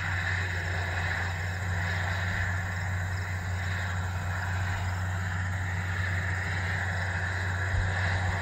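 John Deere 9RT 520 track tractor's diesel engine running at a steady pitch under load while pulling a chisel plow.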